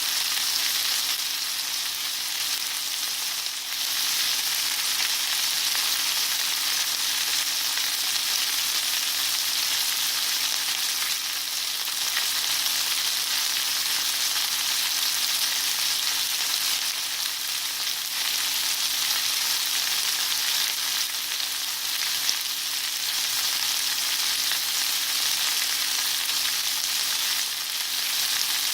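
Steak frying in a hot pan: a steady, dense sizzle with fine crackling spatter, little change throughout.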